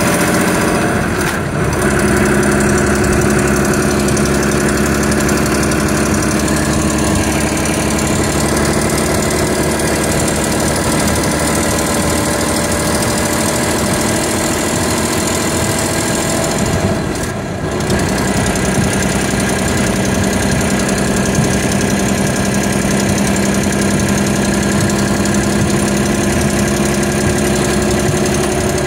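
Volvo B11RT coach's 10.8-litre straight-six diesel running, heard from inside the coach. It runs steadily, with two brief dips, about a second and a half in and again about seventeen seconds in.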